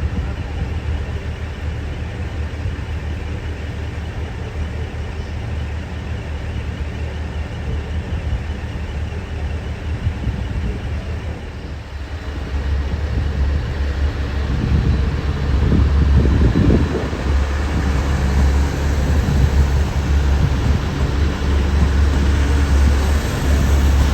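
An HC85-series hybrid diesel train running at a station platform: a steady low engine hum that swells louder about halfway through, with a heavier rumble for a few seconds after.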